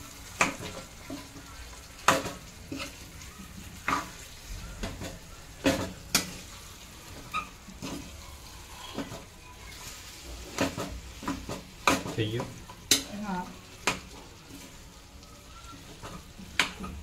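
A spoon stirring mashed-potato filling in a pan of spiced oil, with irregular scrapes and knocks against the pan about once a second.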